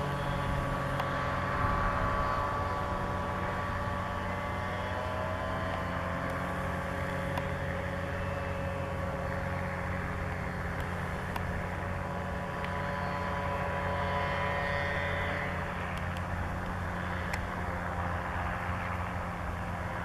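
Tractor engine running steadily under load as it pulls a plough through the soil, a continuous low hum with no breaks.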